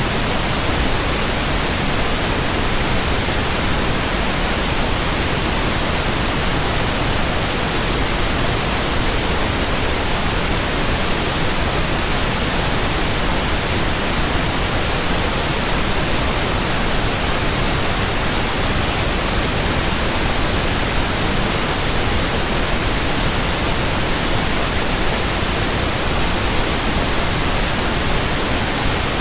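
Steady synthetic white noise: an even, unbroken hiss across all pitches, with no pulses, tones or changes.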